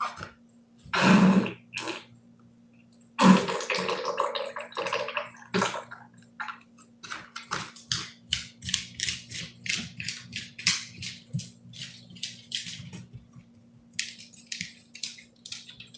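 A dog passing gas: a short wet sputter about a second in, then a longer, louder wet sputter lasting about two seconds. After that, the dog's claws tick on a hard floor as it walks about, two or three ticks a second.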